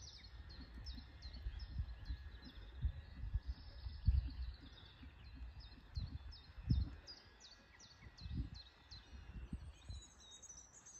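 A small bird singing a series of short, high, falling notes, about two a second, with a pause partway through, over an uneven low rumble of outdoor noise with a few louder low thumps.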